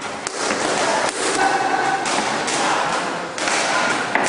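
Boxing gloves striking focus mitts during pad work: several sharp, irregularly spaced punch impacts.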